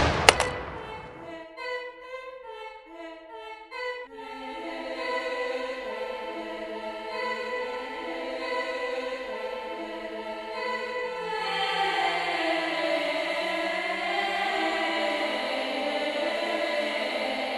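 Choral music: after the fading tail of a loud bang, a short run of brief repeated notes gives way to a choir holding long chords, which swell louder about two-thirds of the way through.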